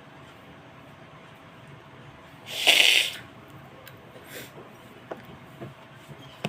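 A person's single sharp sneeze about two and a half seconds in, followed a second or so later by a much fainter short breathy sound.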